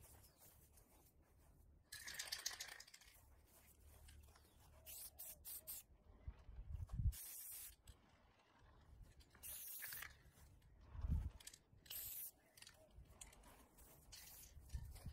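Aerosol spray paint can spraying in several short hissing bursts, with a couple of dull low thumps in between.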